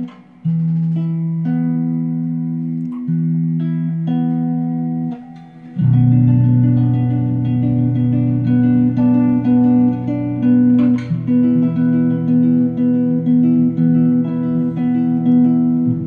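Music played through a small DIY three-transistor discrete amplifier: a plucked-string melody over held notes, filling out with a strong bass line about six seconds in.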